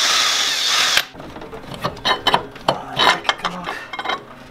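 Ratchet wrench clicking rapidly as a bolt is run out, stopping about a second in; then scattered light metallic clinks and knocks of the tool and loosened parts.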